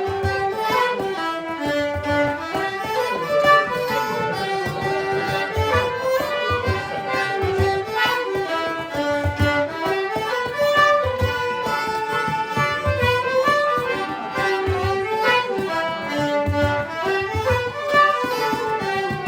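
Fiddle music: a running melody of quick stepped notes over a low beat that lands about once a second.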